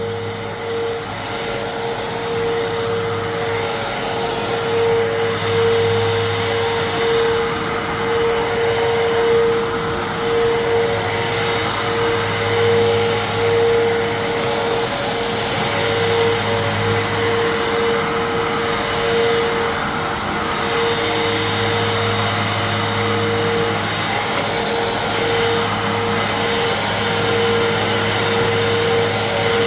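Fantom Fury 12-amp vacuum cleaner running as it is pushed over a rug: a steady motor hum and whine with a rush of air, swelling and easing slightly as it moves.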